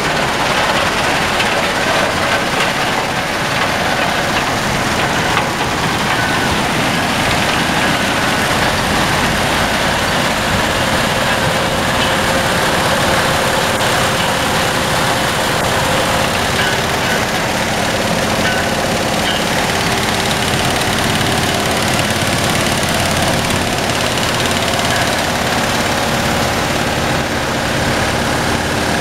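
Mobile triple-deck screening plant running steadily while screening asphalt millings: the engine's steady drone, mixed with the shaking and rattling of the vibrating screen decks and the material.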